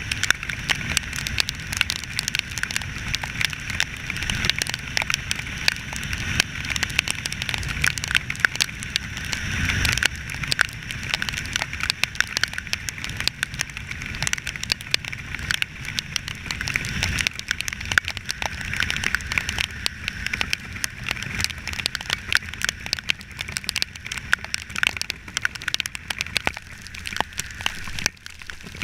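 Rain falling in a dense crackle of raindrop hits, over a steady low rumble.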